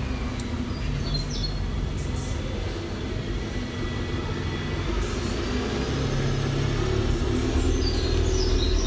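A steady low rumble with faint high chirps about a second in and again near the end; it cuts off suddenly.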